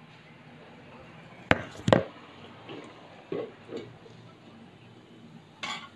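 Two sharp knocks about half a second apart, then a few faint, softer knocks and a short rustle near the end.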